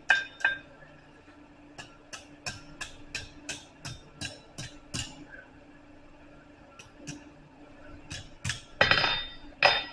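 Hand hammer striking a hot steel bar over the edge of an anvil to start a scroll bend: a run of about ten light, even blows, about three a second, then a few scattered blows, and two louder ringing strikes near the end.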